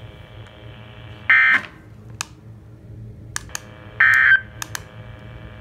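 Two short, loud bursts of buzzing EAS/SAME digital data tones from a NOAA weather radio, about 1.3 s and 4 s in, typical of the end-of-message code sent after an alert. Several sharp clicks fall between them over a faint steady hum.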